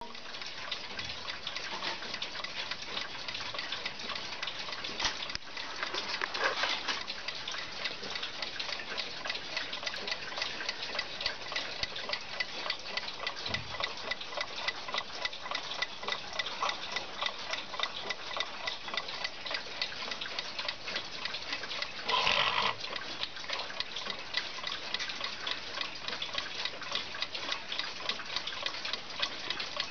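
JAZ alarm clock ticking steadily, an even run of quick, light ticks. A brief louder noise breaks in about two-thirds of the way through.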